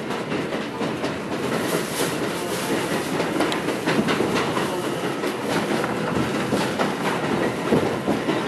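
A New York City subway train (F local) running along the track, heard from inside the car: a steady rumble with wheels clacking irregularly over rail joints.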